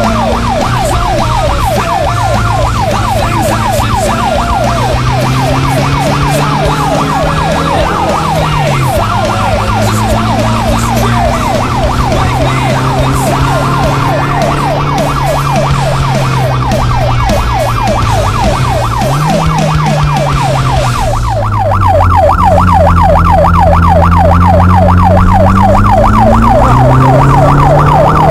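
Rally car engine heard from inside the cabin at speed, its revs climbing and dropping sharply with gear changes, under a constant fast warbling whine. About 21 seconds in the sound becomes suddenly louder and duller.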